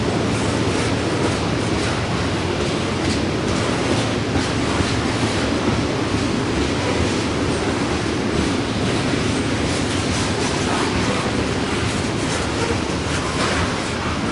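Loaded grain hopper cars of a heavy freight train rolling past steadily on a grade, a continuous rail rumble with a scatter of wheel clicks over rail joints.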